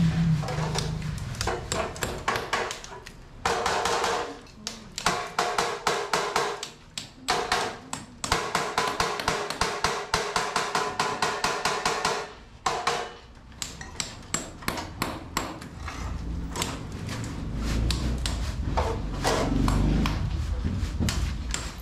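A hammer striking rapidly and repeatedly, several blows a second, with a metallic ringing that sounds under the blows for several seconds in the middle stretch.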